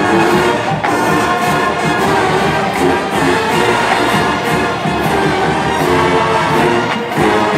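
A college marching band plays a full-volume pregame tune. Brass carries sustained chords over a steady drum beat.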